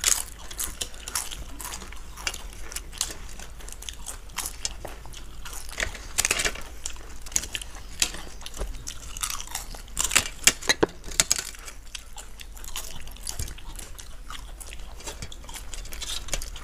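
Crisp fried papads being broken by hand and bitten by two people eating, with sharp crunches and chewing. The crunching comes in busier bursts about six seconds in and again around ten to eleven seconds in.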